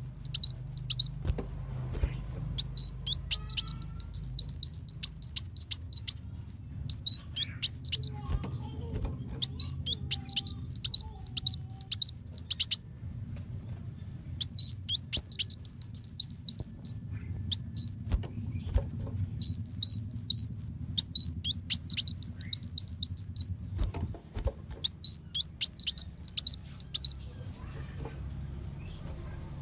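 Kolibri wulung sunbird singing in repeated bouts of rapid, high-pitched chirps, each bout lasting a few seconds with short pauses between, over a faint steady low hum.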